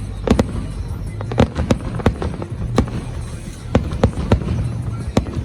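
Fireworks exploding overhead: an irregular series of sharp bangs, about ten in five seconds, some close together.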